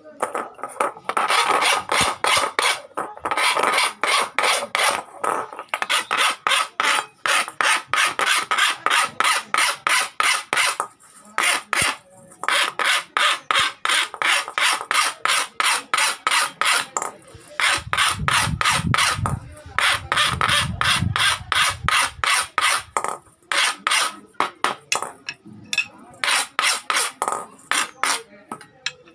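Hand file rasping on iron in quick, regular back-and-forth strokes, about three or four a second, with short pauses now and then. A low rumble joins in for a few seconds after the middle.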